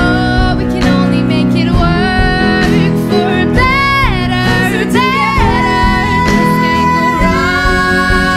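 A song: a singing voice over guitar accompaniment, the voice sliding through a run of bending notes around the middle.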